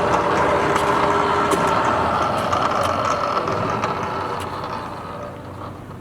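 Bridgeport 2 HP variable-speed vertical mill spindle running with a steady mechanical whine and hum, then dying away over the last couple of seconds as it is shut off and spins down.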